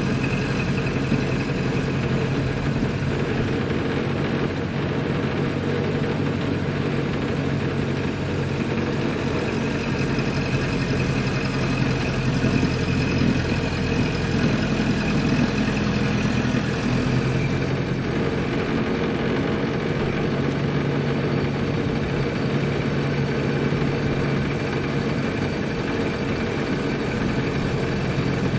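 Ford Model A's four-cylinder engine running steadily as the old car is driven, its pitch shifting slightly around the middle.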